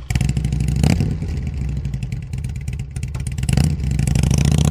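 Motorcycle engine running with a rapid, even firing beat, revved up harder about three and a half seconds in.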